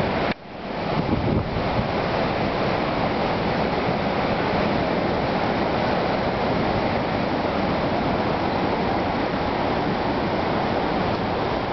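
Tropical-storm wind buffeting the microphone over heavy surf breaking on the beach, a dense steady rush of noise. It drops out abruptly about a third of a second in, then comes back within a second.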